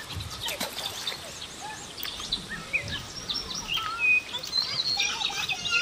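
Small birds chirping, many short rising and falling chirps that come thicker near the end, with a few soft knocks in the first second.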